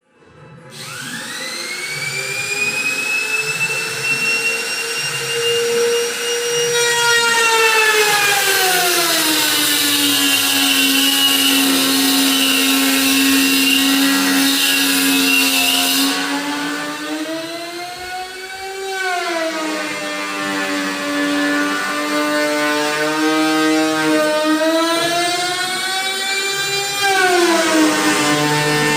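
Handheld electric power tool cutting wood: the motor spins up with a rising whine, then its pitch sags and recovers several times as it is pushed through the cut, with loud cutting hiss through the middle of the clip.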